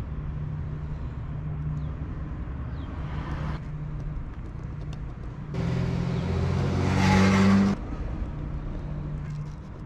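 Steady low engine hum, with a motor vehicle going by louder for about two seconds past the middle.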